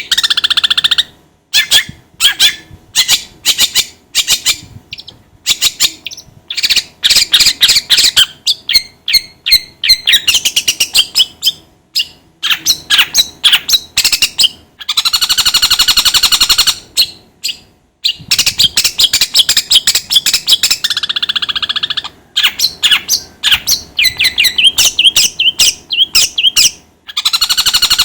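Long-tailed shrike (cendet) singing loudly: fast trains of sharp chattering and chirping notes, broken by a few long harsh rasping phrases in the middle and near the end.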